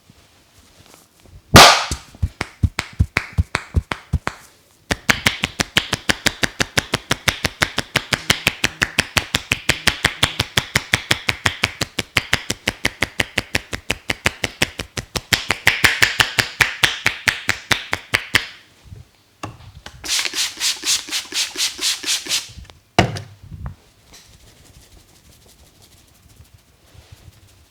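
Rapid rhythmic hand strikes on the head in an Indian head massage. One sharp hit is followed by strikes about three a second, then a long run of about six a second, a brief pause, and another fast run.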